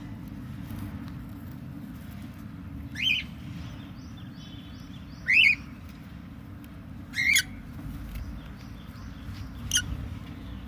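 A 30-day-old lovebird chick giving four short rising chirps, a couple of seconds apart, over a steady low rumble.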